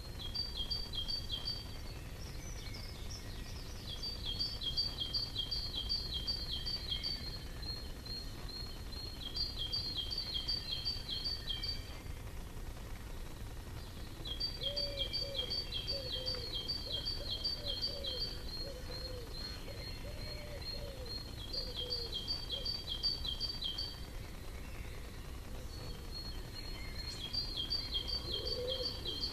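A small songbird singing bursts of quick, evenly repeated high two-pitched notes, each burst two to three seconds long with short pauses between, over a steady low background rumble.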